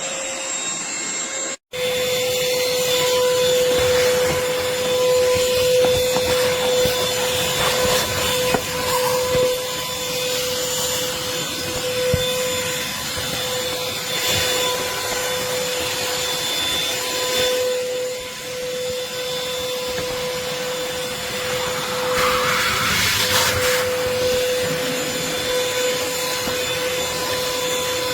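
Akitas V8 cordless stick vacuum cleaner running, with a steady high whine over an uneven rushing noise that swells now and then. The sound cuts out for a moment about one and a half seconds in, then carries on.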